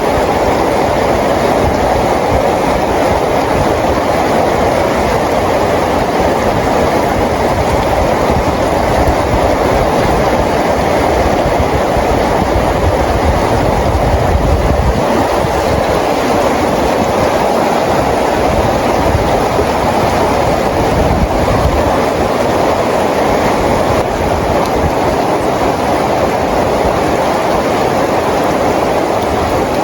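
Steady rain falling, an even unbroken hiss with most of its weight in the low-middle range and a low rumble beneath.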